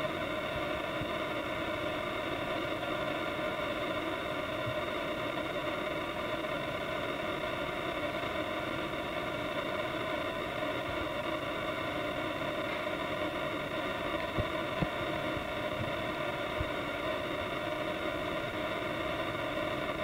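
Steady droning background noise that does not change, with a few faint clicks about three-quarters of the way through.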